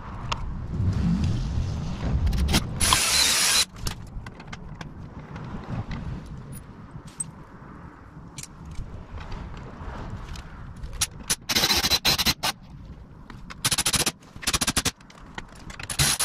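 Red Milwaukee cordless power tool whirring in short bursts as it drives the bolts of a toolbox mount into a motorcycle's rear frame: once about three seconds in, then several times in the second half. Light clinks and handling of metal parts and hardware come between the bursts.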